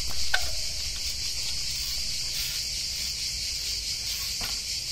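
Steady high-pitched chirring of insects, with two faint clicks, one just after the start and one near the end.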